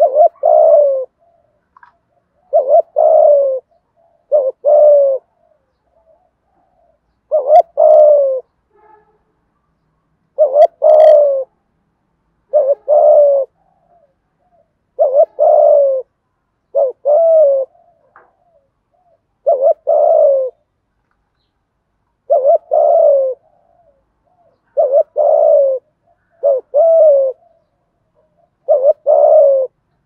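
Spotted dove cooing: a steady series of about a dozen low, short coo phrases, each lasting about a second, some of them doubled, with pauses of a second or two between.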